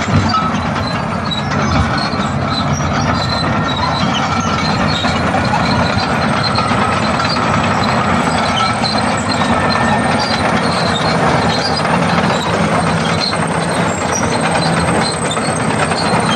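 Bulldozer running and moving, a steady engine drone mixed with the metallic clatter and squeal of its steel crawler tracks.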